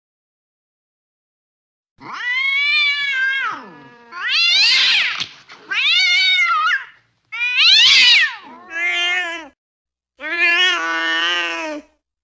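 A domestic cat yowls angrily in about six drawn-out calls that rise and fall in pitch, starting about two seconds in after a stretch of silence.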